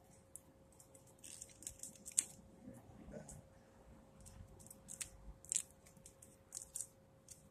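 Duct tape being wrapped around a cable and pressed down, giving faint, scattered sticky crackles.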